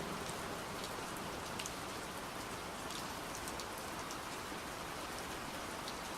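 Steady, gentle rain falling, with faint scattered drops ticking on a surface.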